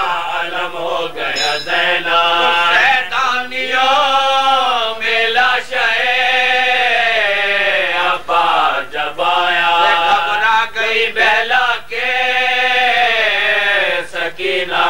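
Male voices chanting a marsiya, the Urdu elegy for Karbala, in long drawn-out melodic phrases whose pitch rises and falls, without instruments.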